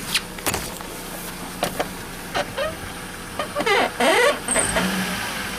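Toyota Platz engine running as the throttle is opened, with the alternator drive belt giving short whistling chirps as the revs rise, about four seconds in: the sign of a belt slipping on its pulleys.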